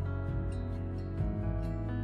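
Soft background music over the end screen: held chords with a light ticking beat, the chord changing a little over a second in.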